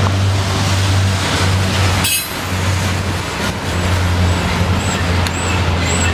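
Freight train of autorack and double-stack container cars rolling past on the rails: a steady low rumble, with a sharp clank about two seconds in and a few faint high squeaks near the end.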